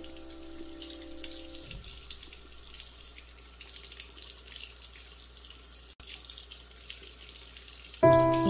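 Water running steadily from a tap into a sink, splashing over plant stems and roots held under the stream as they are rinsed. Piano music comes in loudly near the end.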